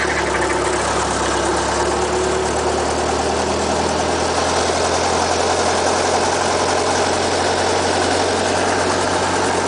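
Robinson R22 helicopter running steadily on the ground, heard from inside the cockpit as a loud, even engine drone.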